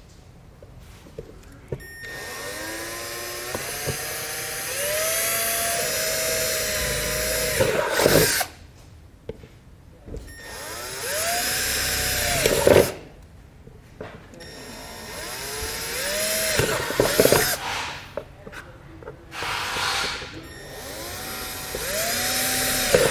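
Cordless drill boring 1/4-inch holes through a plastic panel cover. There are about five separate runs, the motor's whine rising as the trigger is squeezed and sagging as the bit cuts through, with short pauses between holes.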